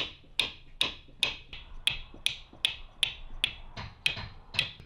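A caulking mallet striking a caulking iron in a steady rhythm of about two and a half blows a second, each blow with a short, high ring. This is the iron driving caulking cotton into the seams of a wooden boat's hull planking.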